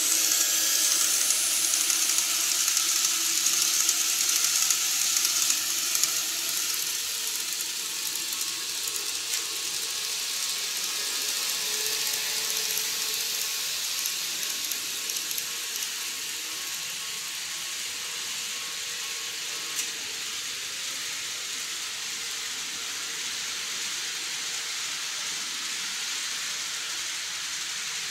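KATO N-gauge E233 series model train running on its track: a hissing rumble of wheels and motor, loudest as it passes close for the first few seconds, then fading to a low, steady running noise as it draws away.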